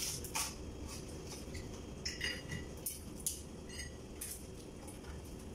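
Crabs being eaten by hand at a table: scattered clicks and clinks of crab shells, plates and a steel pot, a few of them ringing briefly.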